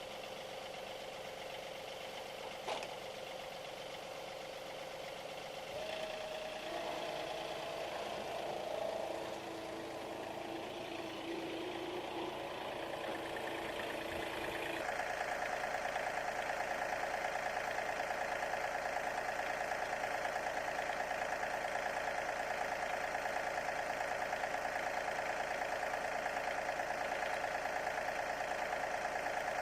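An engine running steadily. Its pitch steps up about six seconds in, and again about fifteen seconds in, when it settles into a faster, evenly pulsing run.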